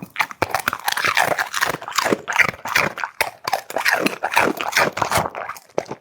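A pet chewing and crunching dry food: rapid, irregular crunches.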